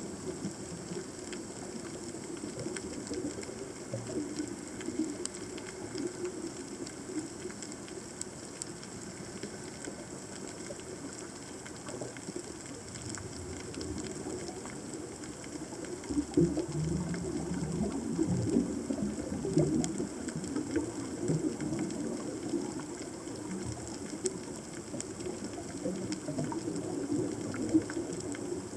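Underwater reef ambience picked up by a camera in its housing: a steady crackle of fine clicks, of the kind typical of snapping shrimp. Irregular low pops and rumbles join in and grow louder from about halfway through.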